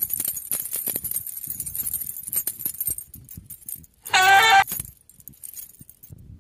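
A kitten meows once, loud and under a second long, about four seconds in. Before it comes about three seconds of crackly rustling with many small clicks.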